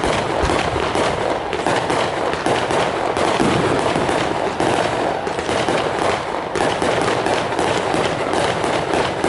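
Fireworks exploding in a dense, continuous barrage: rapid crackles and bangs overlapping many times a second.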